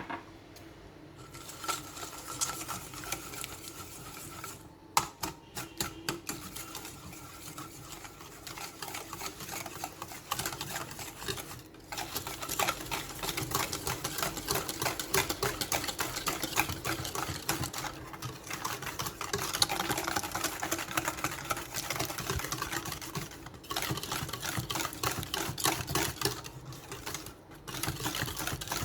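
Ingredients being beaten by hand in a bowl: fast, repeated clicking strokes of the utensil against the bowl, in several stretches with short pauses between them.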